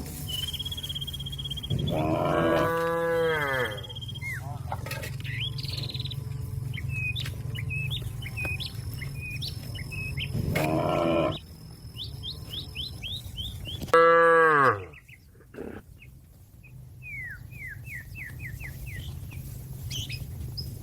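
A cow mooing three times, each long call falling in pitch, the last the loudest. Birds chirp between the calls over a steady low hum.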